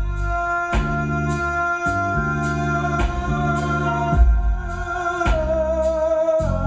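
R&B band music played live, with a steady beat of about two strokes a second over bass and long sustained chords; a long held note wavers near the end.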